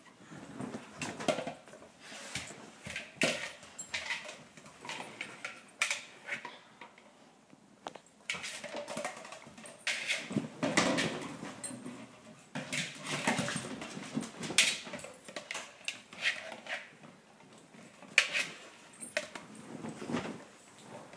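Two dogs playing rough over a hard plastic ball toy: dog sounds mixed with scuffling and knocks of the toy, coming in irregular bursts.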